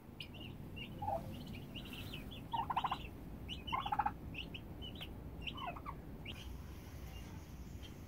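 White midget turkey poults peeping with short, high calls while a tom turkey gobbles twice in quick rattling bursts, about two and a half and four seconds in.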